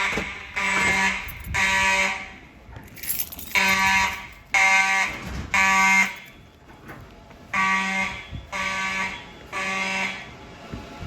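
Siemens mechanical fire alarm horns sounding in the temporal-3 evacuation pattern: three short, buzzy blasts, a pause, then three more, repeating.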